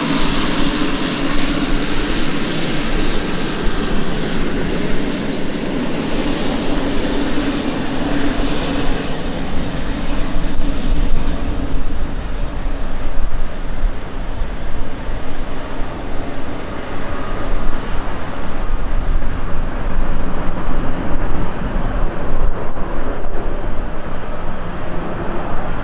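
Boeing C-17A Globemaster III's four Pratt & Whitney F117 turbofan engines running during engine start: a loud, steady jet rush with a low hum through the first half. The high hiss thins out about twenty seconds in.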